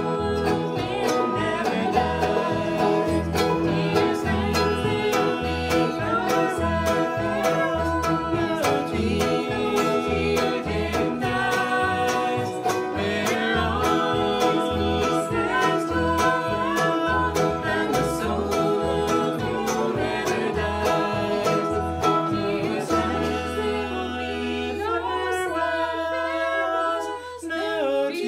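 Acoustic bluegrass band playing: banjo, mandolin, acoustic guitar, fiddle, cello and upright bass picking and bowing a steady rhythm under a singing voice. About 23 seconds in the picking stops and the band holds one long chord.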